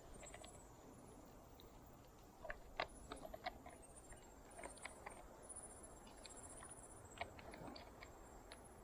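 Near silence broken by scattered light clicks and taps, a cluster of them about three seconds in and a single sharper one near seven seconds, with faint high chirping in the background.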